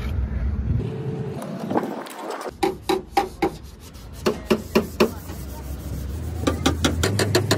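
Hand rubbing and sanding on a truck's steel cab panel, with a run of irregular sharp knocks in the middle. Near the end a rapid, even ticking of about six or seven clicks a second starts, over a steady low hum.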